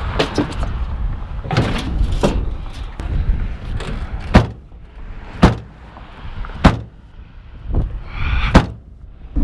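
A series of sharp bangs and clunks about a second apart, the loudest four in the second half, with scraping and rustling between.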